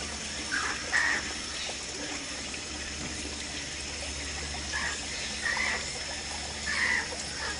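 Steady trickling water, with a few short high-pitched calls now and then.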